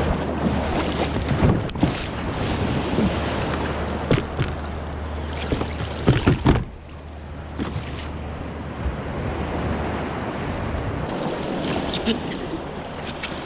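Small surf washing and water splashing around a plastic sit-on-top kayak as it is pushed off the beach, with several knocks and splashes against the hull in the first half. After about six and a half seconds it settles to calmer water noise.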